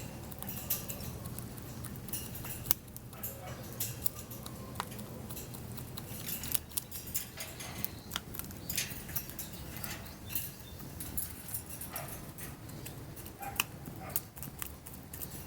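A speckled hen pecking at birdseed: irregular sharp taps of its beak, several a second in places, over a steady low background hum.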